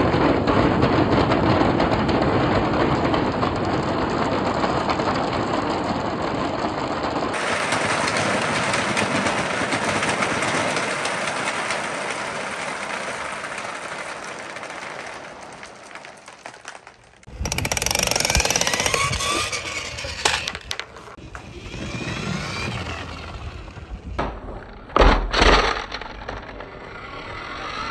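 Hundreds of marbles, bouncy balls and gel beads clattering and rolling down wooden pegboard marble-run slopes: a dense rattle that thins out and nearly stops about two-thirds of the way through. Then a fresh lighter clatter of marbles starts, with a few loud sharp knocks near the end.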